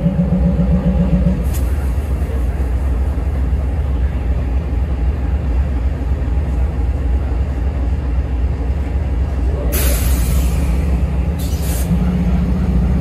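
Amtrak locomotive idling with a steady low rumble, and two short sharp hisses of air venting from the air-brake system, about ten seconds in and again a second and a half later.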